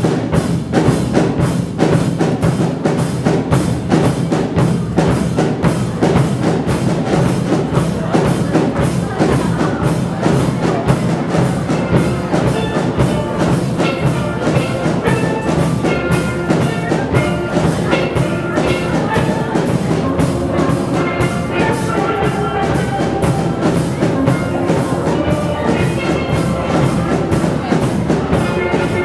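Steel band playing a fast Carnival tune: steel pans carrying the melody over bass pans and a drum kit, with a steady, dense beat. The pan melody stands out more clearly from about halfway.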